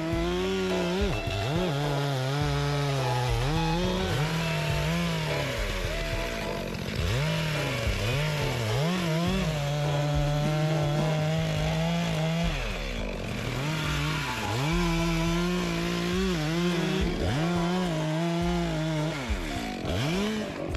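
Stihl two-stroke chainsaw running at high revs. Its pitch drops and climbs back up several times as the throttle is let off and opened again, and it is held steady at full speed in between, as when cutting through logs.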